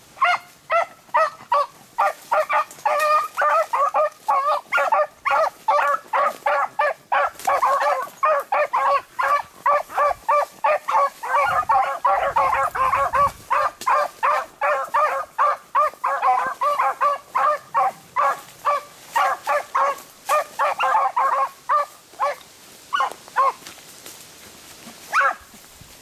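A brace of beagles baying while running a rabbit's scent line, in rapid repeated calls about three a second, which thin out to a few single calls near the end.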